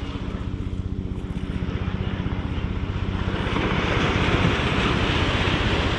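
Steady, fast-pulsing drone of a propeller airplane's engine. About halfway through, a rush of surf or wind hiss swells in beneath it.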